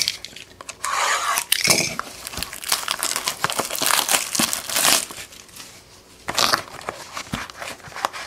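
Plastic wrapping on a trading-card hobby box being torn and crinkled off by hand, in several irregular bursts, the longest and loudest about three to five seconds in.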